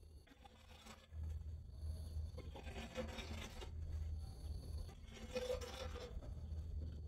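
A metal hoe blade scraping dirt and debris across a floor, two long scrapes about two and a half seconds apart, over a low steady rumble.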